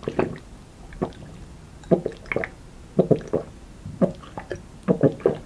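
Close-miked wet mouth sounds from a person eating and drinking: a string of short, squishy clicks and smacks, unevenly spaced, several coming in quick twos and threes.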